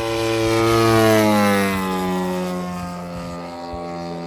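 ZDZ 90cc petrol engine and 28x12 propeller of a 1/5-scale P-47 Thunderbolt model flying past: loudest about a second in, then its pitch falls as it goes by and moves away.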